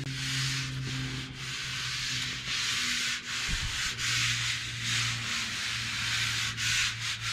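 A hand rubbing back and forth over the bare sheet steel of a VW Beetle front fender, feeling for small dents, in steady repeated strokes. A steady low hum runs underneath.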